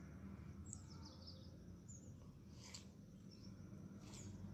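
Near silence: faint room tone with a low steady hum and a few faint, short high-pitched chirps.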